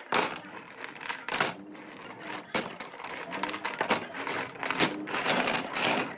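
Small cut wooden pieces dropped onto a pile on a wooden worktable, knocking and clattering against each other at irregular intervals.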